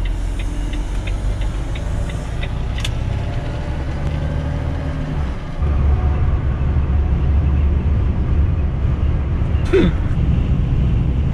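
Volvo truck's diesel engine and road noise heard inside the cab while driving, with the turn indicator ticking about three times a second for the first couple of seconds. About halfway through the rumble steps up louder and heavier, as at motorway speed.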